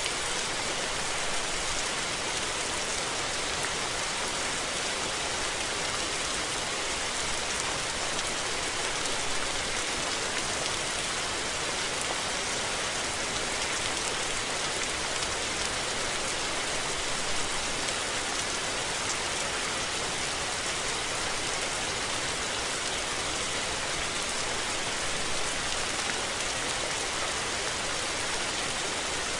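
Steady rain falling, an even hiss of many raindrops with no thunder.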